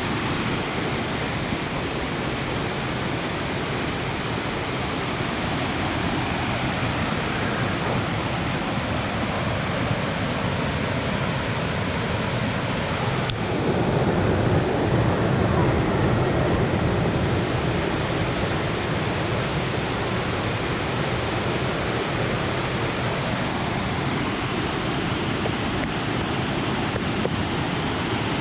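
Steady rush of falling and flowing water from a waterfall. For a few seconds about halfway through it grows louder and deeper.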